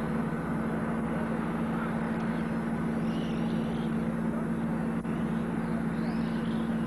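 A steady low hum throughout, with faint rising and falling whines of radio-control racing cars about three seconds in and again near the end.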